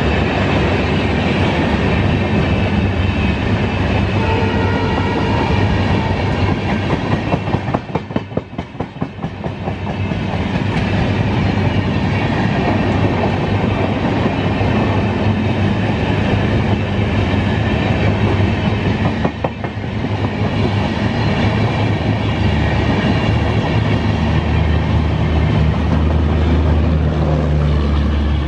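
Passenger coaches of an express train passing close at speed, a steady loud rumble with the wheels clattering rhythmically over the rails. Near the end a low hum builds as the power car with its generator goes by.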